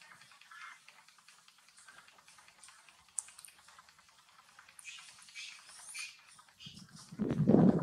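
A macaque biting and chewing a ripe mango: soft, wet smacking and a steady patter of small clicks. Near the end comes a louder, low-pitched sound lasting about a second.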